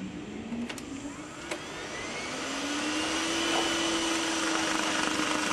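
Vacuum cleaner motor starting after two sharp clicks, winding up in pitch over about two seconds and then running steadily with a whine.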